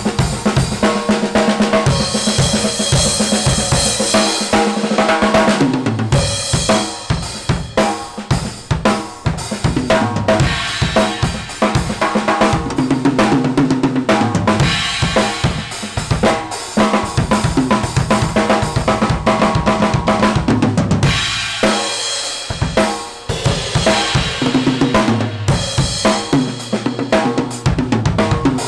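Acoustic drum kit played continuously: kick drum, snare, toms and cymbals struck in a busy groove with fills, the playing easing briefly a few times.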